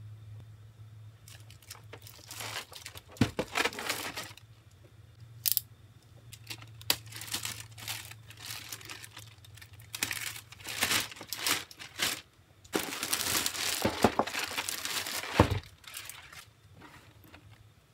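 Clear plastic shrink wrap crinkling and tearing as it is pulled off a cardboard box, in irregular bursts with a few sharp rips. The longest, loudest stretch of crackling comes near the end.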